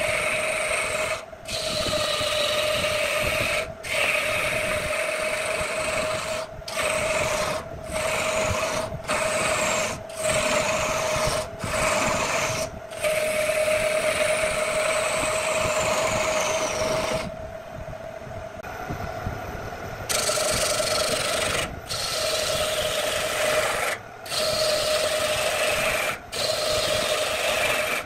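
Gouge cutting a wooden blank spinning on a wood lathe: a rough scraping hiss over the lathe's steady hum, broken by brief gaps every second or two, with a quieter stretch of a few seconds after the middle.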